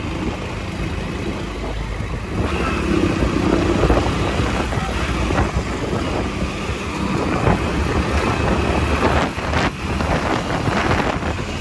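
Wind rushing over the microphone with the road and engine noise of a Hero Passion Plus motorcycle being ridden at speed.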